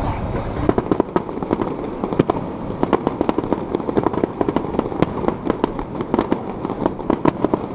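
Fireworks going off: a dense, irregular run of sharp pops and crackles, several a second.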